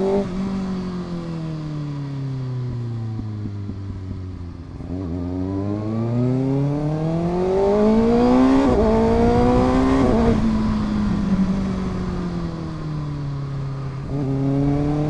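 Kawasaki ZX6R inline-four engine through an Arrow full-system exhaust with a deep note, riding on the road. Revs fall off for about five seconds, then climb under acceleration with a quick upshift partway through. The throttle closes about ten seconds in, and the revs wind down before picking up again near the end.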